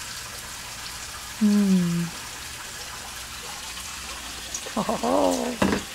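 Steady hiss of running, splashing water. Two brief voice sounds break in: a short falling hum about a second and a half in, and a short murmur near the end.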